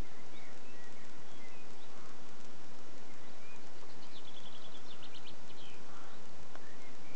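Steady outdoor background noise with small birds chirping, and a quick trill of rapid repeated notes from about four to six seconds in.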